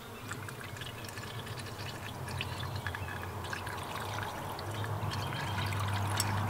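Engine flush additive pouring from a can through a plastic funnel into the engine's oil filler, a trickling glug that grows louder as the pour goes on.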